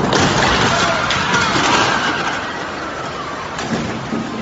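Storm wind of Typhoon Mangkhut rushing hard, with a faint wavering whistle above the noise; it starts abruptly and eases slightly after about two seconds.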